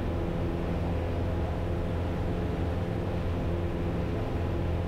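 Piper Cherokee's single piston engine and propeller droning steadily in cruise, heard in the cockpit as an even, unchanging hum with no change in pitch.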